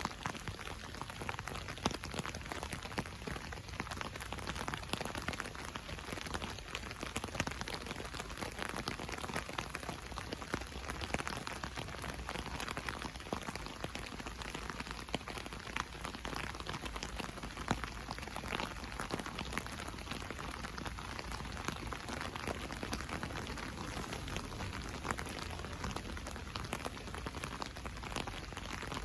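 Rain falling on an umbrella: a dense, steady patter of drops ticking on the canopy over a continuous rain hiss.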